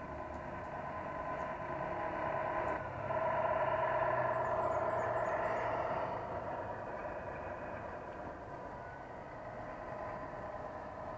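Radio-controlled 1/14 Tamiya King Hauler truck driving by with a steady hum of several tones. It jumps louder about three seconds in as the truck comes close, then fades as it drives away.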